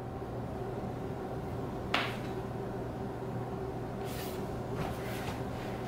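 Quiet room tone with a steady low hum, broken by a single short click about two seconds in and a brief faint rustle near four seconds.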